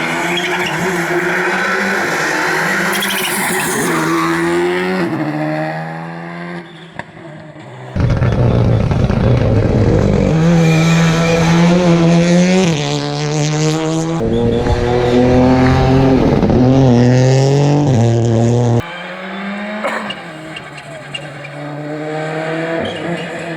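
Rally cars at full attack, engines revving hard and climbing in pitch through the gears with a drop at each shift, with some tyre squeal. A much louder, closer car runs from about a third of the way in until it cuts off sharply near the end.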